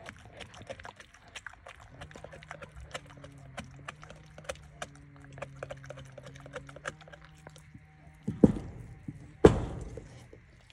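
A dog gnawing a large bone: a run of small sharp clicks and crunches from teeth on bone, with two louder thumps about eight and a half and nine and a half seconds in.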